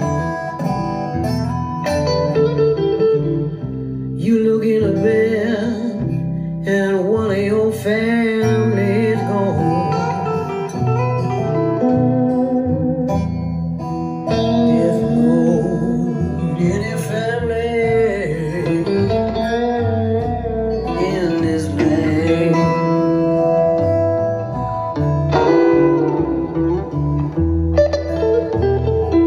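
Music with guitar and a singing voice, played back through a pair of Klipsch LaScala AL5 horn loudspeakers and recorded in the room.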